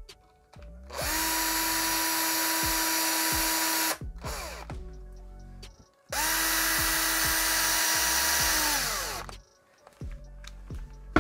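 Power drill-driver driving a bolt into a 3D-printed printer part, in two runs of about three seconds each. The motor whine rises as each run starts; the first cuts off suddenly, and the second slows and falls in pitch as it stops.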